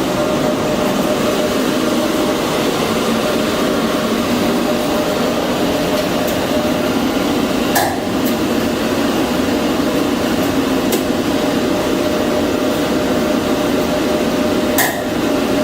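Steady mechanical hum with a held tone, broken by two sharp knocks, one about eight seconds in and one near the end.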